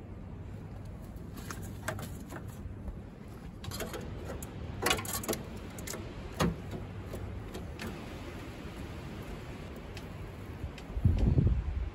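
Scattered light clicks and clinks of car parts being handled by gloved hands, over a steady low hum. A cluster of sharper clinks comes about five seconds in, and a louder low bump near the end.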